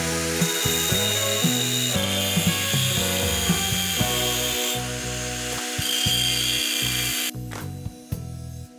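Background music of plucked-string notes over a steady, noisy workshop tool sound, such as sawing or grinding, which stops about seven seconds in, leaving the music with a few clicks.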